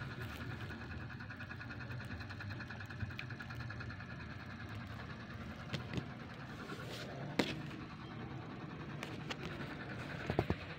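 A steady mechanical hum, with a few light clicks: one about six seconds in, one about seven and a half seconds in, and a quick cluster near the end.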